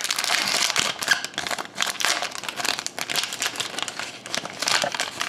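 Foil wrapper of an Upper Deck SPx hockey card pack being torn open by hand, a continuous run of crinkling and tearing with many small crackles.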